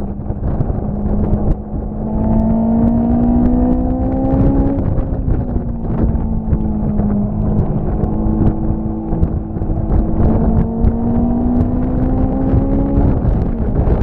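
An engine running under way, its pitch rising twice as it speeds up, over heavy wind buffeting on the microphone.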